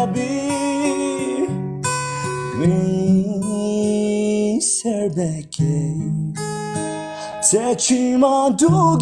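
A song sung with acoustic guitar accompaniment: long held notes with slides between them, and a short break about halfway through.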